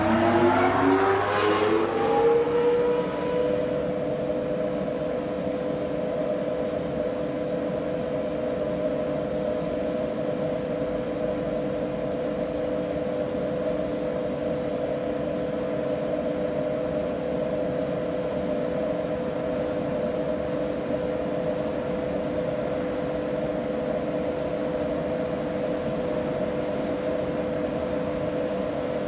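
Rooftop exhaust fans spinning up, their whine rising in pitch over the first few seconds, then running at a steady, loud drone with a constant whine.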